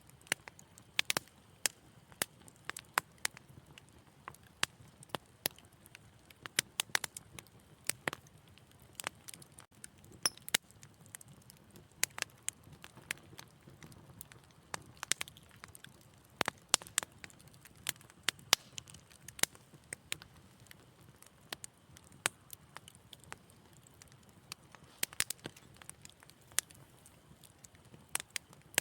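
Wood fire crackling in a fireplace: frequent sharp, irregular pops and snaps over a low steady hiss of burning.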